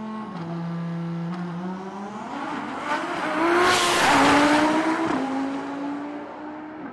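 A high-performance car accelerating hard. Its engine note drops with a gear change under a second in, then climbs steadily and is loudest as the car goes by about four seconds in, its pitch falling once it has passed.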